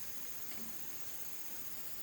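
Insects trilling steadily in one unbroken high tone over an even background hiss.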